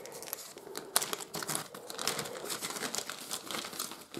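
A small clear plastic bag crinkling and crackling as it is handled and opened by hand, with one sharper crackle about a second in.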